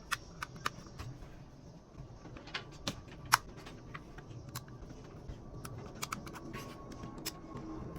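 Irregular small clicks and taps, about a dozen scattered through, with one sharper, louder click a little past three seconds, over a faint low steady hum.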